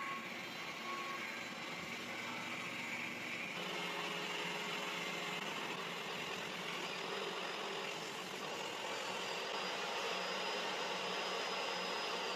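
Table saw running steadily as it rips a 2x4 lengthwise into one-inch square strips.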